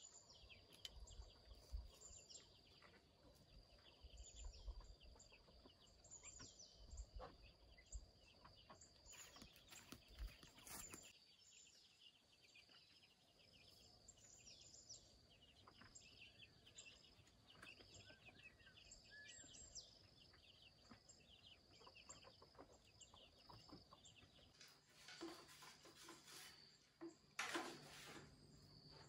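Faint outdoor ambience: a steady high insect drone with scattered bird chirps. A few rustling scrapes come near the end.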